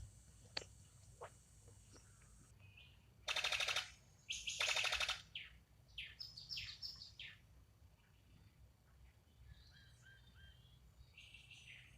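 Bird calling: two loud, harsh rattling calls a few seconds in, followed by a quick run of short falling chirps and a few fainter chirps near the end.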